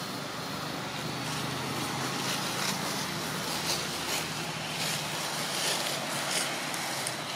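Steady outdoor background noise with a faint low hum, like a distant motor, and scattered light crackles.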